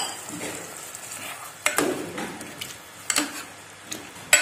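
Steel spoon stirring a watery potato-and-onion curry in an aluminium pot, knocking sharply against the pot a handful of times, a second or so apart.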